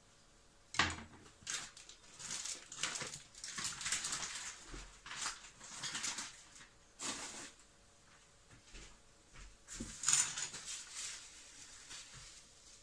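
Irregular rustling and handling noise of things being moved about on a kitchen counter, with a sharp clack about a second in and another near the ten-second mark. The food processor is not running.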